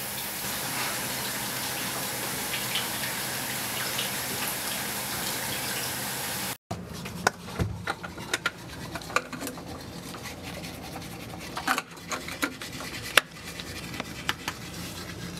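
Water running steadily from a tap, which stops abruptly about six and a half seconds in. After that, quieter room sound with scattered light knocks and clicks.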